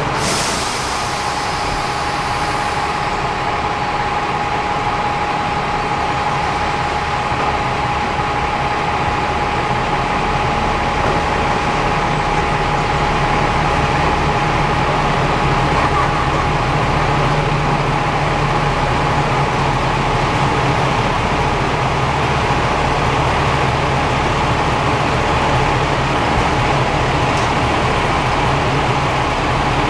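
Diesel railcar engines running, with the train moving slowly into the station and then standing, and a steady high whine through roughly the first half.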